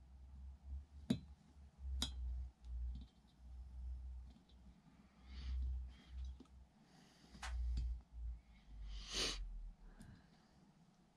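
Faint, scattered small metallic clicks and soft handling rustles as a Stihl MS 291 chainsaw's crankshaft and cylinder assembly is worked by hand, with a small C snap ring being fitted onto the clutch side of the crankshaft.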